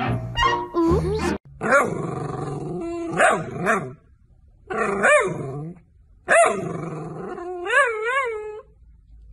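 Dog vocalising in three drawn-out bouts of growly, howl-like 'talking' that rise and fall in pitch, the last ending in a wavering warble. Background music plays for the first second and a half.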